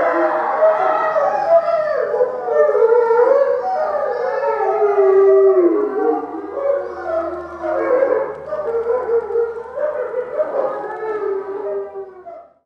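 Three eastern timber wolves howling together in a chorus, several overlapping howls gliding up and down in pitch. The chorus thins and fades over the last couple of seconds.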